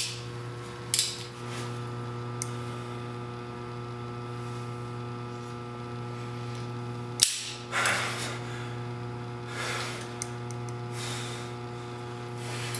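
Steady electrical hum made of a low drone with a stack of even steady tones above it. About seven seconds in comes a single sharp click, followed by a few soft rustles.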